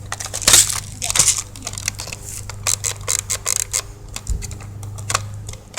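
Irregular close-up clicks and crackles, several a second, with a steady low hum underneath: handling noise, the loudest clicks about half a second and a second in.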